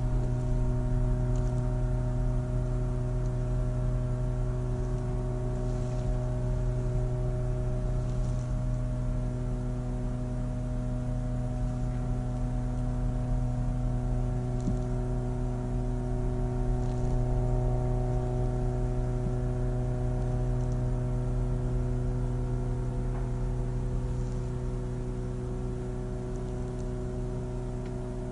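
Sawmill machinery running with a steady drone: a low hum with several steady tones above it, easing off slightly toward the end.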